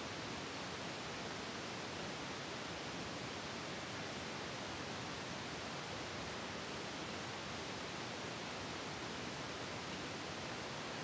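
A steady, even hiss with no distinct knocks, clanks or voices.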